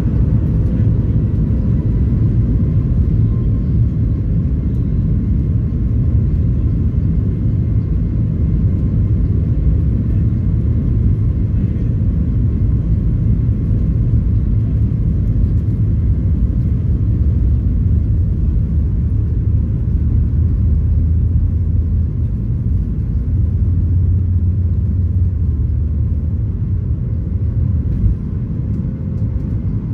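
Boeing 737 MAX 8's CFM LEAP-1B engines at takeoff thrust, heard inside the cabin over the wing during the takeoff roll: a loud, steady roar with runway rumble beneath. A faint whine rises in pitch over the first couple of seconds, and the loudness dips briefly near the end.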